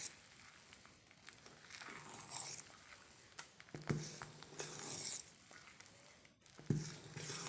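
A steel spoon stirring and folding thick fermented ragi idli batter in a steel bowl: soft wet scraping and squelching, with a few short knocks of the spoon against the bowl.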